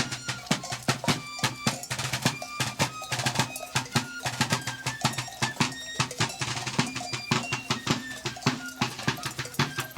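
Drum-led music: snare and bass drums beat a rapid, steady stream of strokes, with short high notes above and a steady low tone beneath.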